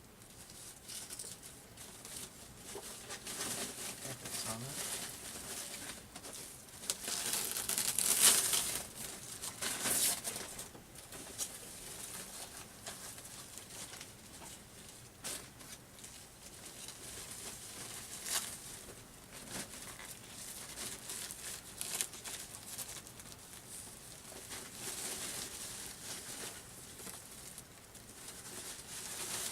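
Plastic and foam packaging crinkling and rustling as monitor parts are handled, in irregular bouts that are loudest about eight and ten seconds in.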